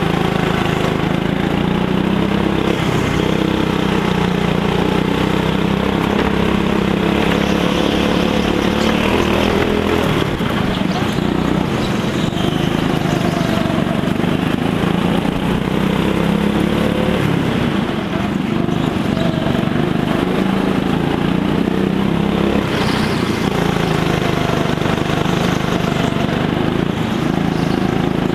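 A go-kart's engine heard from on board while driving a lap, its note rising and falling as the throttle is worked through the corners.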